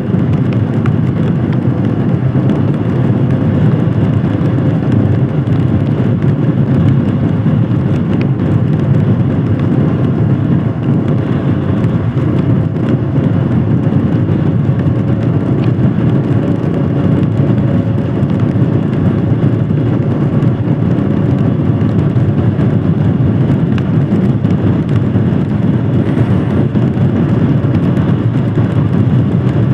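Royal Enfield Himalayan Scram 411's 411 cc single-cylinder engine running steadily while the motorcycle cruises along, with road and wind noise and no change in pace.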